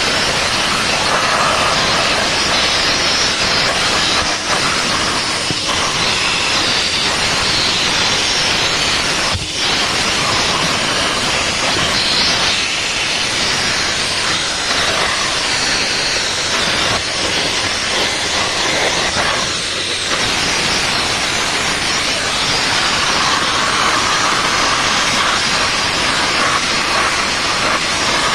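VacuFlo 560 central vacuum running, its hose and nozzle sucking air in a steady loud hiss that shifts in tone as the nozzle moves over a car's interior. A few brief knocks sound over it.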